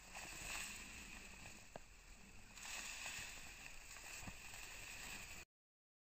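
Faint outdoor ambience: a steady hiss with a few light crackles, cutting off suddenly to silence about five and a half seconds in.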